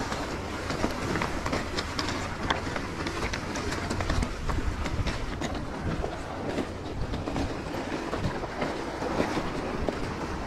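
Mountain bike riding over loose, rocky shoreline: tyres crunching over stones and the bike rattling and clattering steadily with many small knocks.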